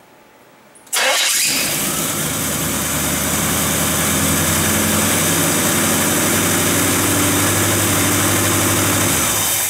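C3 Corvette's small-block Chevrolet V8 starting about a second in, catching quickly and idling steadily, then shut off near the end.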